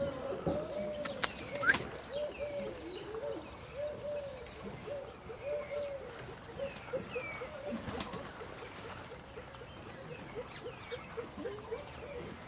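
A bird giving a long run of short, low, rising-and-falling clucking notes, about two or three a second and quicker after the middle, with small birds chirping faintly above it and a few sharp clicks.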